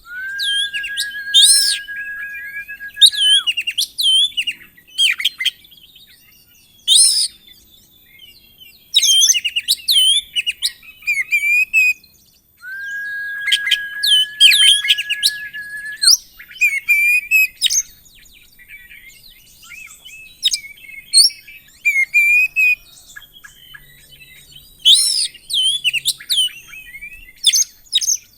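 Oriental magpie-robin (kacer) singing a rich, varied song full of quick whistled and chattering phrases. It twice holds a long, steady whistle of about three seconds: once at the start and once about halfway through.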